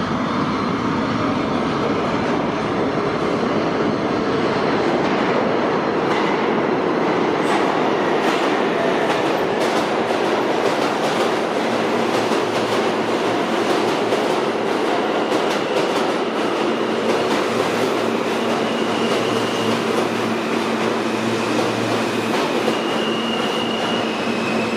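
R160A-2/R160B subway train running into an underground station, a steady rumble with wheels clicking over rail joints. Thin, high wheel or brake squeals set in near the end as it slows.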